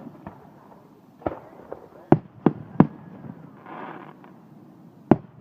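Fireworks going off in irregular sharp bangs, with a quick run of three loud reports about two to three seconds in and another loud one near the end.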